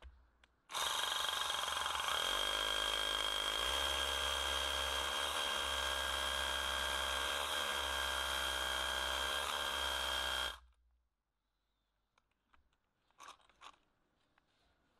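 Rebuilt National (Panasonic) EZ6813 cordless hammer drill, fitted with a brushless motor, drilling into concrete. It runs steadily with a high whine for about ten seconds, then stops suddenly, followed by a few faint clicks.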